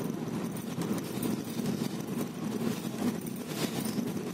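Inside the upper deck of a moving double-decker bus: the steady low rumble of its engine and road noise, with a few faint rattles.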